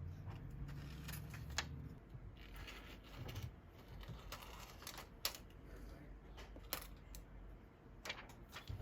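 Faint, scattered small clicks and crackles of thin plastic liner being slowly peeled off a new adhesive screen seal on a phone frame.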